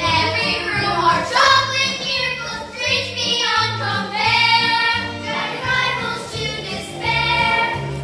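A children's cast singing together in chorus over a musical backing, with held and gliding vocal notes above a steady bass line.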